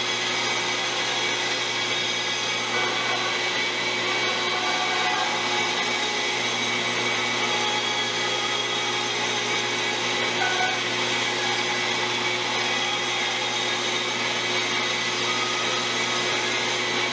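Bandsaw and its dust-collection vacuum running steadily while the blade cuts a Western Red Cedar paddle blank: a constant motor hum and rushing air noise at an even level throughout.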